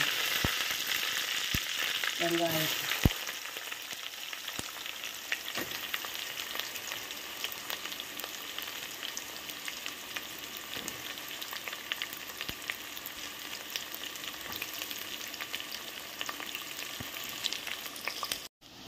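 Hot oil sizzling and crackling in a pot as curry leaves, green chilies and sliced onions fry. It is louder for the first three seconds, with a sharp click about three seconds in, then settles to a steady sizzle.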